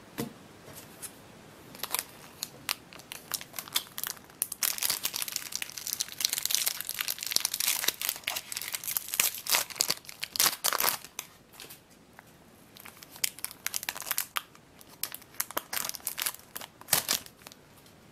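Foil trading-card booster pack crinkled and torn open, a dense crackling rustle from about four seconds in until about eleven seconds. After that the cards are slid out and handled with light clicks and rustles.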